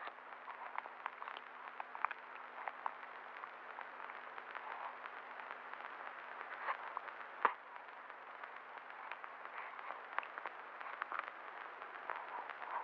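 Hiss, hum and scattered crackle of an old film soundtrack, with a few faint, short sounds from the newborn and one sharp click about seven seconds in.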